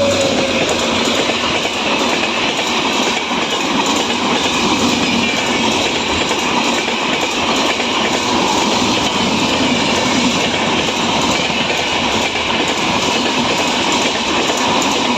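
Express train coaches rolling past at speed, a loud steady rush with the wheels clattering over the rail joints.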